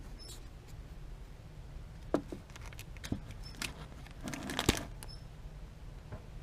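Quiet room with a steady low hum, a few faint clicks and a short patch of rustling and clicking about four seconds in.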